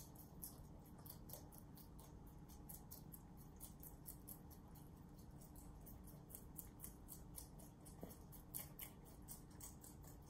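Rabbits chewing fresh leafy greens: faint, crisp crunching, several quick bites a second.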